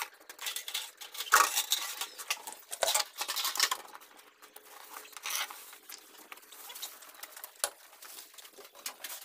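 Woven plastic sacks rustling and crinkling as they are grabbed and lifted, in uneven bursts that are loudest about a second in and again around three seconds.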